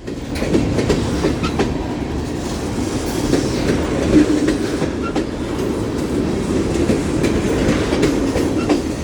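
Union Pacific freight train rolling past: a steady rumble of wheels on rail, with irregular sharp clicks.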